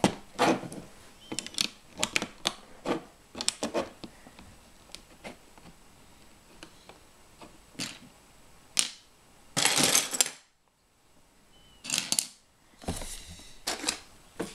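Plastic LEGO bricks clicking and clattering as pieces are pressed together and picked from a loose pile: irregular sharp clicks, with a longer rattle of sifting through the pieces about ten seconds in.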